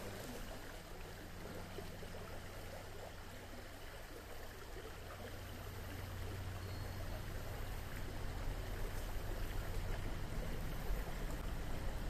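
Shallow mountain stream running over a stony riffle: a steady rush of water that grows a little louder over the second half.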